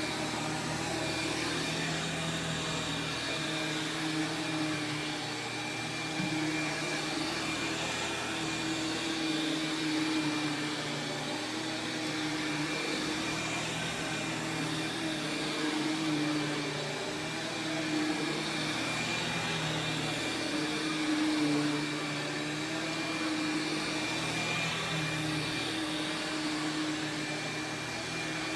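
Sharp Twin Energy EC-12TWT4 upright vacuum running, its 12-amp two-stage motor giving a steady high whine. The lower hum wavers every few seconds.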